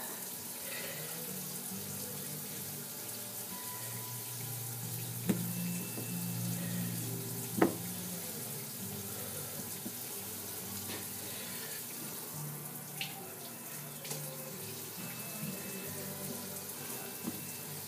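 Kitchen faucet running steadily into the sink, with a couple of sharp clicks about five and seven and a half seconds in.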